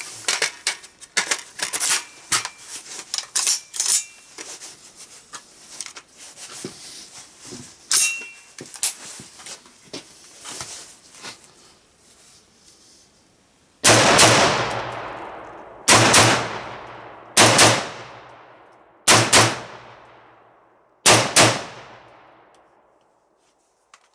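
A run of metallic clicks and clacks as the rifle is handled and readied. Then five single shots from a Colt Combat Unit Carbine, an AR-15-type 5.56 mm carbine, about one every two seconds, each with a long echoing tail.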